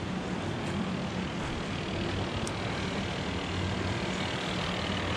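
Steady low drone of distant engines, even and unbroken.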